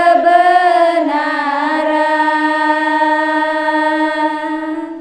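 A female voice singing the long held final note of an Indonesian devotional song on the word "cahaya" (light). The note wavers at first, then holds steady, and it stops at the end.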